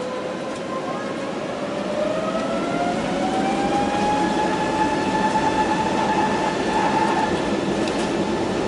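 Airbus A320neo engines heard from inside the cabin spooling up for takeoff: a whine that rises in pitch over several seconds, then levels off, over a steady rushing rumble that grows louder from about two seconds in.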